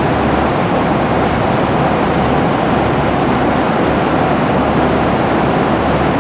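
Airliner cabin noise in flight: a steady, even rushing roar that does not change.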